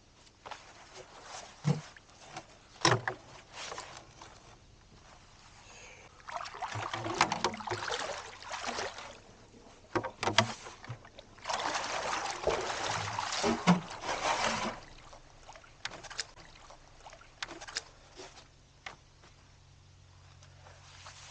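Canoe landing in shallow water: sharp knocks of a paddle and gear against the canoe hull, and two stretches of water splashing and sloshing as the canoe is stepped out of and the shallows are waded.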